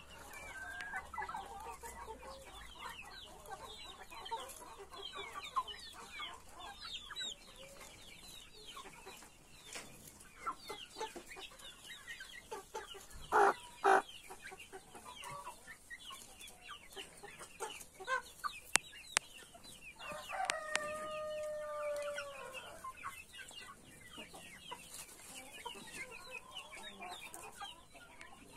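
A flock of chickens clucking and calling continuously. There are two loud squawks about halfway through, and a rooster crows once, about two-thirds of the way in.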